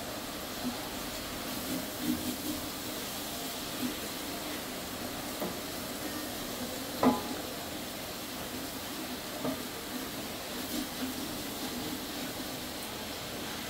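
Chicken pieces sizzling in oil in a large aluminium pot, stirred with a wooden spatula, which scrapes and knocks against the pot now and then. The loudest knock comes about seven seconds in.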